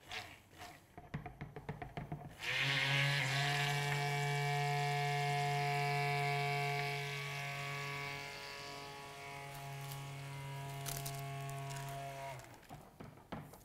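Hand-held immersion blender running in a bowl of chocolate ganache, blending it smooth: a steady electric motor hum that starts about two seconds in, drops in loudness about halfway through, and stops near the end. A few light taps come before it starts.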